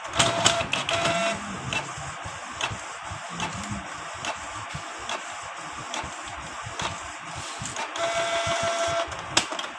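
Canon Pixma G2010 inkjet printer feeding paper and printing a nozzle check page. Its motor whines briefly twice near the start and for about a second near the end, with clicking between.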